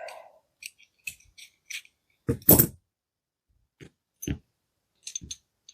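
Irregular clicks and knocks of a rivet nut drill adapter's small metal and plastic parts being handled and fitted together, with the loudest knock about halfway through.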